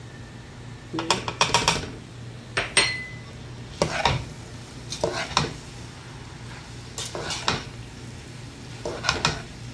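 A spoon stirring and scraping dry rice and vermicelli in a granite-coated pot while they toast in fat. The scrapes and knocks come in bursts every second or two, with one short ringing clink about three seconds in.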